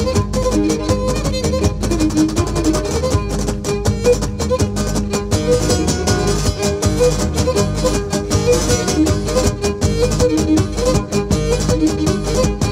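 Live Cretan folk dance music: a Cretan lyra plays the bowed melody over strummed laouta and a steady beat on the daouli drum.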